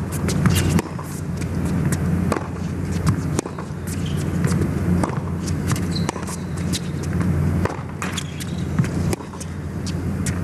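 Tennis rally on a hard court: racket strikes on the ball traded back and forth about once a second, with ball bounces, over a steady low hum of arena noise.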